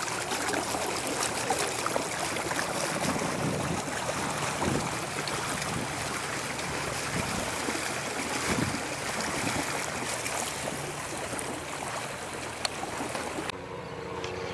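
Water splashing and lapping, heard as a steady rushing hiss with small splashes. About a second before the end it cuts to a quieter low steady hum.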